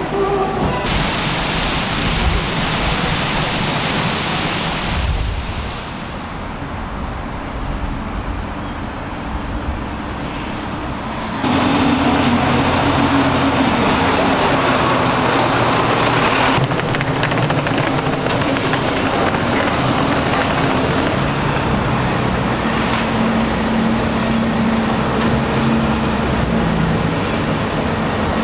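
City traffic noise, a steady rush of passing vehicles, that changes abruptly several times. In the second half a steady low engine hum runs under it.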